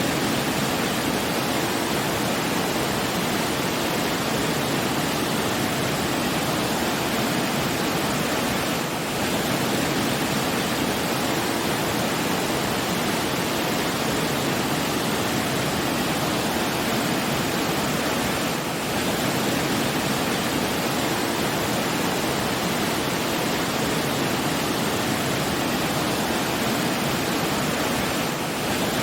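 Steady rushing of falling water, an even, unbroken hiss with a brief slight dip in loudness about every ten seconds.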